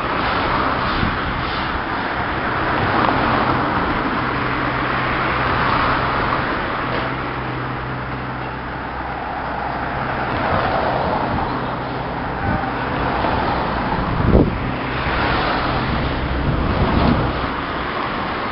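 Steady road traffic noise from cars on an overpass above a rail yard, with a low steady hum through the first half. There is a single sharp thump about fourteen seconds in.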